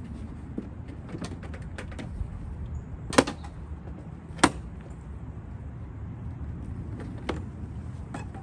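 Plastic push-pin retainer clips being popped out of a Jeep Grand Cherokee WK2's front end, one after another. There are small clicks, then two sharp, loud snaps a little over a second apart, then a couple more clicks near the end, over a steady low rumble.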